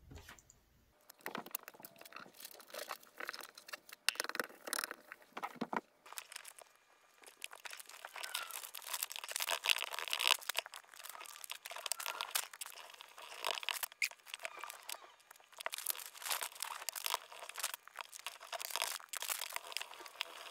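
Sheets of paper rustling and crinkling under hands as they are slid, pressed and smoothed flat on a table, starting about a second in as an irregular run of crackles.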